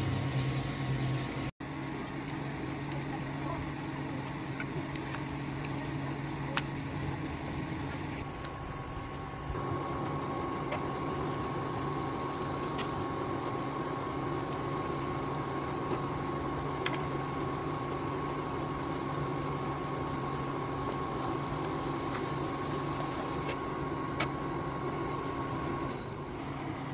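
Steady mechanical hum of a running kitchen appliance's motor with a faint high whine; the hum shifts and gets a little louder about ten seconds in.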